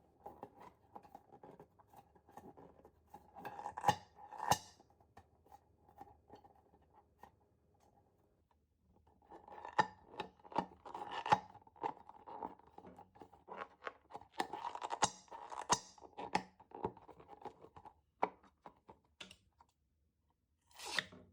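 Irregular crackling, clicking and scraping from slime-making materials being handled, with a lull of about a second partway through.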